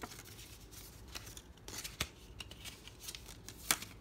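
Paper rustling and crinkling as small printed booklets and tissue paper are handled, with a few crisp snaps of paper, the loudest near the end.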